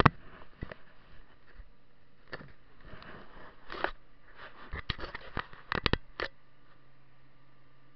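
Handling noise from a handheld camera being moved around a tractor cab: scattered knocks and rubbing, thickest from about five to six seconds in. Under it is a steady low hum, the New Holland T6.155's engine heard through the closed cab.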